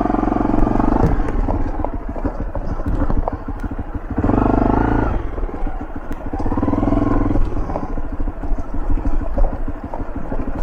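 Motorbike engine running under throttle over a rough, rocky dirt track, surging louder three times and dropping back between, with scattered short knocks.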